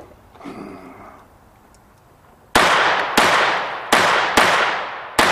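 Five handgun shots fired in quick succession at bowling pins, starting about two and a half seconds in and coming roughly two-thirds of a second apart, each followed by a fading echo.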